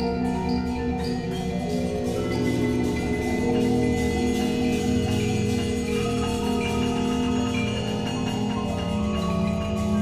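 Percussion ensemble playing an improvised texture: marimbas and other mallet percussion with piano, many struck notes ringing and overlapping into a dense, constantly changing collective sound.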